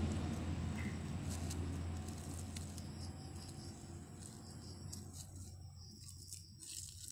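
A passing vehicle's low rumble fading steadily away, with a few faint clicks as scissors snip at a plastic bag.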